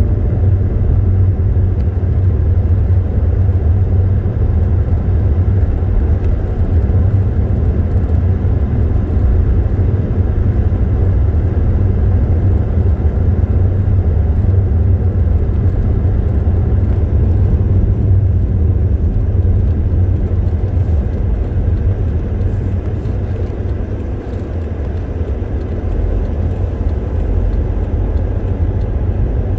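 Car driving along a road: a steady low rumble of engine and tyre noise, easing slightly for a moment about three quarters of the way through.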